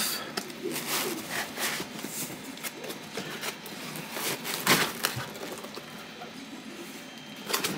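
Packing foam and cardboard rubbing and scuffing as a small 3D printer is worked loose and lifted out of its foam insert, with one sharper scrape a little past halfway.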